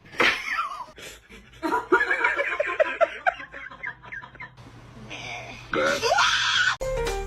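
A person laughing in a quick run of short beats, about four or five a second, then a high rising squeal about six seconds in.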